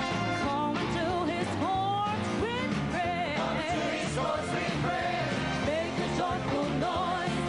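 Worship song: a singer's voice sliding and wavering between notes over full band accompaniment.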